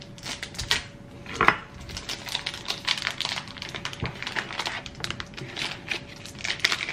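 Plastic sausage packet being torn open and crinkled by hand, a quick run of crackles and rustles with one sharp click about one and a half seconds in.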